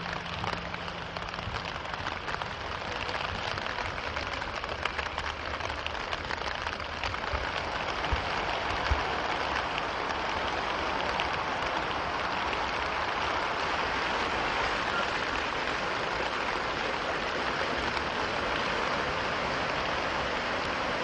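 Steady rushing noise of fast-flowing river floodwater running through a town street, growing a little louder about halfway through.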